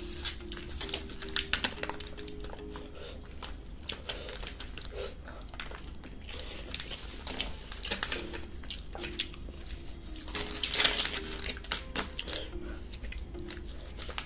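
Close-up eating sounds: fingers mixing rice in aluminium foil trays and mouth chewing, a dense run of small clicks, crackles and wet smacks, with a louder rustle about eleven seconds in. Soft instrumental music plays underneath.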